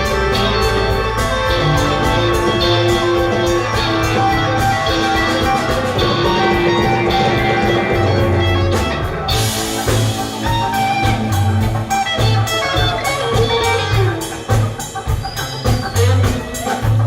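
A live band playing a blues number: guitar over a drum kit keeping a steady beat.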